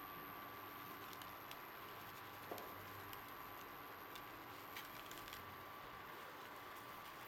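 Noodles simmering faintly in a pan of water, with scattered small pops and ticks over a steady low hiss and a faint constant tone. One light knock about two and a half seconds in.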